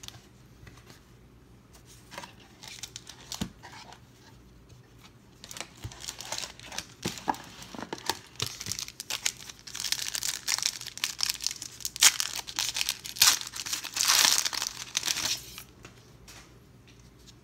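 A foil wrapper on a pack of 1992 Pro Set football cards crinkling and tearing as it is pulled from the box and ripped open by hand. The rustling starts about two seconds in, is loudest in the latter half, and dies down near the end.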